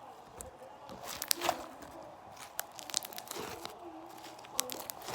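Slime being squeezed and poked by hand, giving irregular sticky clicks and crackling pops in small clusters.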